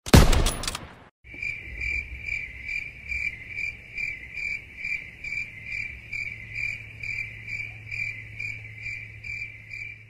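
A single sniper rifle shot that rings out for about a second, followed by crickets chirping in a steady, even rhythm of about two to three chirps a second over a low hum. This is the crickets meme effect used to signal an awkward silence.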